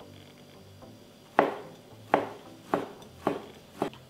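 Kitchen knife chopping crab sticks on a cutting board: five sharp knocks of the blade on the board, roughly every half second to two-thirds of a second, starting about a second and a half in.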